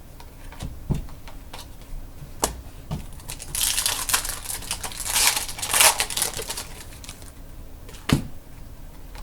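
Trading cards and their packaging being handled: a few light clicks and taps, then about three seconds of crinkly rustling from about three and a half seconds in, and a sharper tap near the end.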